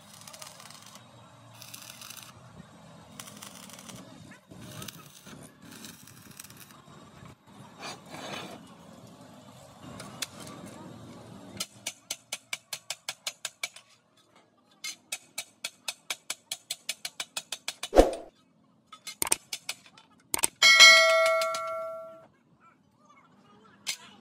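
Stick welding arc crackling and hissing for the first eleven seconds or so. Then a hammer taps rapidly on the steel weld, about seven strikes a second in two runs. Near the end come a few heavier knocks and one steel plate clang that rings for about a second.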